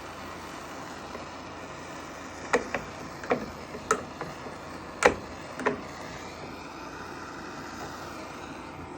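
About seven sharp clicks and taps over a few seconds, the loudest about five seconds in, from a metal putty knife knocking and scraping against the golf cart's plastic cover as the weld is smoothed. A steady low hum runs underneath.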